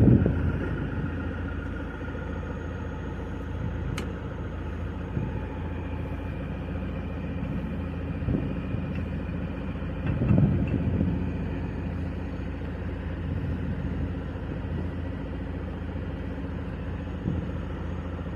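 Road roller engine running steadily, with a brief louder swell about ten seconds in. A single sharp click sounds about four seconds in.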